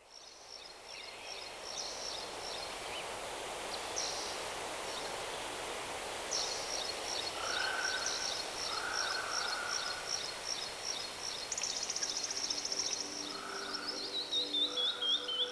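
Birds singing over a steady outdoor hiss: many repeated high chirps, a fast trill about two-thirds of the way through and a falling run of notes near the end. Soft music fades in near the end.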